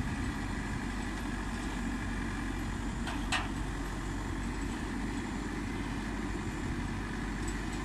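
Maxxi NDR 102L rice combine harvester's diesel engine running steadily as the tracked machine drives slowly down off a truck, with one brief sharp knock about three seconds in.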